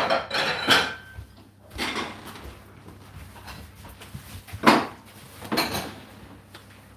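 Kitchen clatter: separate knocks and clinks of dishes and cupboard doors being handled, the loudest a sharp knock nearly five seconds in, over a faint steady low hum.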